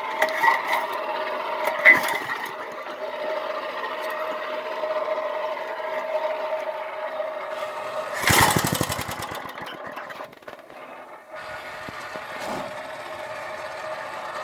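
A 1995 Briggs & Stratton single-cylinder small engine running steadily. About eight seconds in there is a short, louder burst of rapid firing, and the level dips briefly before the engine settles back to its steady run.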